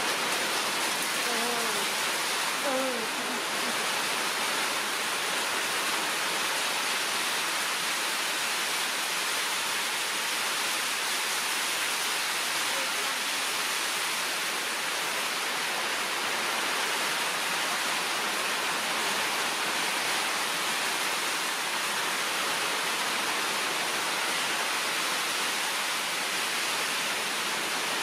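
Steady, even rushing hiss with no pitch or rhythm, like heavy rain or running water, holding the same level throughout.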